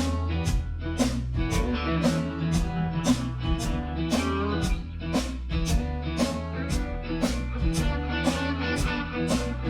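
Background music: a blues-style guitar track with a steady beat, about two beats a second.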